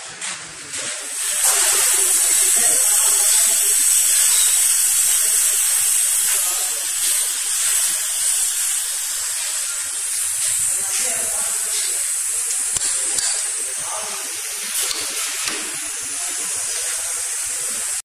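Compressed air hissing from an air compressor's outlet valve, starting about a second in as the valve is opened and then running on steadily, easing a little after the middle.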